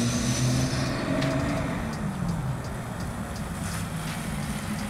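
BMW X5 3.0d's straight-six diesel engine running as the SUV drives up. Its pitch falls about two seconds in as it slows, leaving a low rumble.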